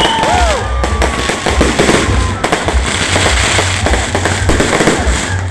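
Fireworks display going off: a rapid run of bangs and crackles from bursting shells, with a few short falling whistles near the start.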